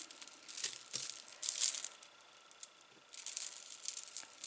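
Costume jewelry being handled: small beads and metal pieces clicking and rustling in two spells, with a short lull in the middle.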